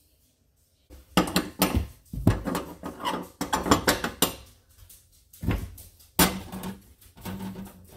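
Metal gas-stove burner heads and caps clinking and clattering as they are handled and set back in place on the stovetop. A string of knocks starts about a second in.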